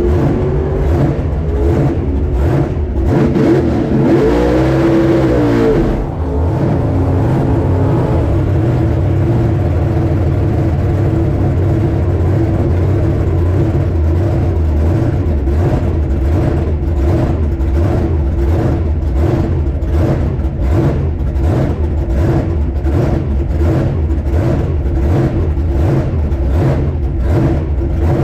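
Supercharged drag-race engine of a Chevy 3100 pickup idling loudly, heard from inside the cab, with a steady pulsing beat. Around four to six seconds in, a brief higher sound rises and falls in pitch over it and then cuts off.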